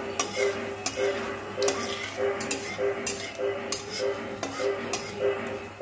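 A spatula stirring cumin seeds in hot oil in a metal kadhai: repeated sharp clinks and scraping against the pan, about two or three a second, over the sizzle of the seeds in the oil. Background music with a repeating note runs underneath.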